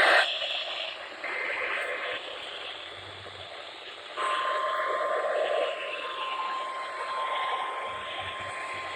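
Weather radio receiver hissing with static on a weak NOAA Weather Radio signal. About four seconds in, a steady high tone comes in and holds.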